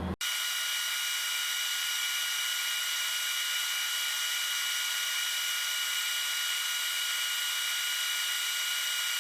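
Galvo laser engraver running a job: a steady, high-pitched machine whine with several fixed tones and no low end. It starts and stops abruptly.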